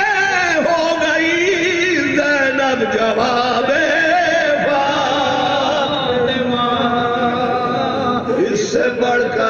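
Soz khwani: men chanting an Urdu mourning elegy unaccompanied, a lead voice drawing out long wavering notes, joined by a second voice holding the tune with him.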